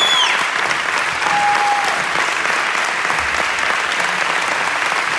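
A woman's high, wavering sung note cuts off right at the start, and an audience applauds steadily.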